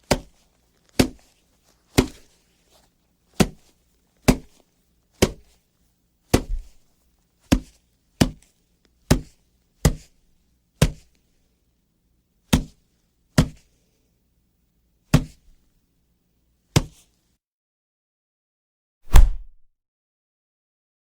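A series of punch sound effects: about seventeen short, sharp hits, one after another at roughly one-second intervals. The last hit, near the end, is louder and deeper than the rest.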